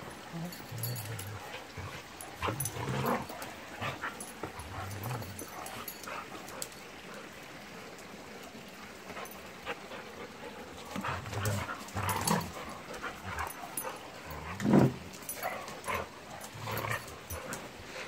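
Two dogs, a six-month-old puppy and a 13-year-old dog, play-fighting: irregular low growly rumbles and short yips, loudest about fifteen seconds in.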